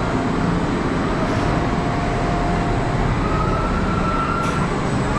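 Cobra's Curse spinning-coaster train rolling slowly along its track: a steady rumble, with a faint whine near the middle.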